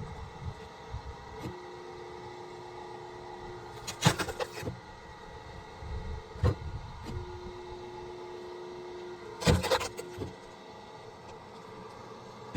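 Two sharp wooden knocks about five and a half seconds apart, typical of an axe splitting firewood rounds; the second is followed by a few smaller knocks. A steady hum runs underneath.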